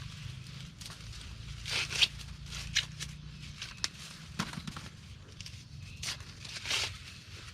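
Dry corn leaves and husks rustling and crackling in irregular bursts, with a few sharper snaps, as ears are picked by hand in a dry cornfield.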